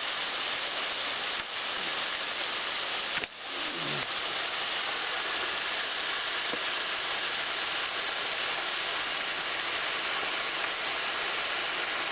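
Small waterfall, about 10 feet tall, pouring into a deep pool: a steady rushing hiss. It dips briefly about three seconds in.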